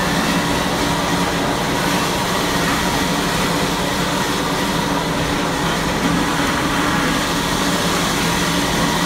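An engine running steadily close by: a continuous, even drone with a low hum that does not change.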